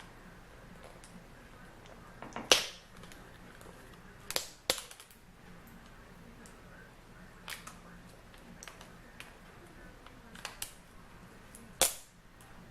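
Scattered sharp clicks and taps of small plastic parts and tools being handled as a laptop's LCD cable connector and its tape are worked loose, about six in all, the loudest about two and a half seconds in and near the end.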